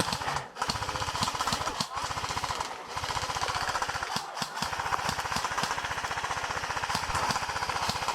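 Airsoft electric gun firing on full auto: a fast, even rattle of shots in long bursts, broken by short pauses about half a second, two, three and four and a half seconds in.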